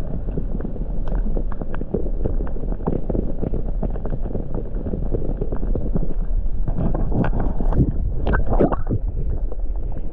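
Muffled water sloshing and knocking heard through an underwater camera housing while a small striped bass is held and let go, with a run of louder knocks and splashes about seven to nine seconds in.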